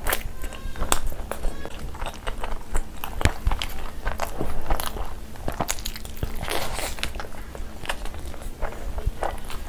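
Close-miked eating: biting into and chewing a chicken shawarma wrap, with sharp crunches and clicks at irregular intervals.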